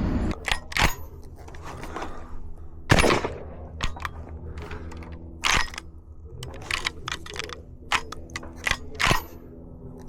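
A 12-gauge semi-automatic shotgun's action being worked by hand, a string of sharp metallic clacks and clicks, the loudest about three and five and a half seconds in. The action is sticking, which the owner thinks needs lubrication.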